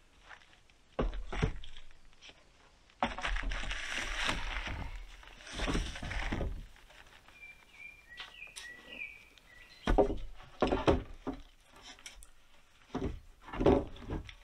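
Wooden roof poles knocking against each other and the log frame as they are lifted and laid in place, with two longer scraping, dragging sounds of wood on wood in the first half and several hard knocks in the second half.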